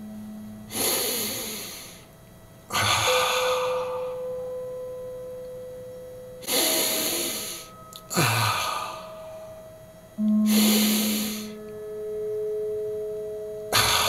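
Loud breaths through the nose, six of them at uneven intervals, each about a second long: alternate nostril breathing. A looped drone of sustained steady tones plays underneath and changes pitch now and then.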